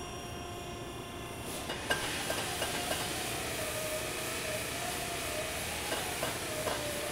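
Hydraulic pipe bender running while bending 3-inch steel exhaust pipe. A steady hiss with a wavering whine comes in about a second and a half in, with scattered clicks as the pipe is bent.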